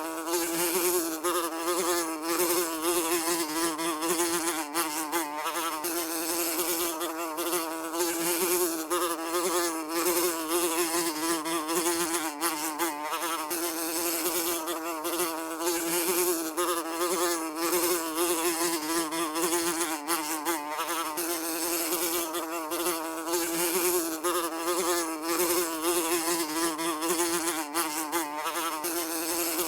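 Housefly buzzing continuously in flight, a steady droning hum whose pitch wavers slightly, with small rapid swells in loudness.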